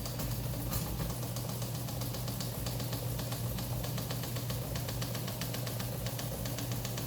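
Teletype Model 15 teleprinter printing: a rapid, even mechanical clatter of type strikes over the steady hum of its running motor.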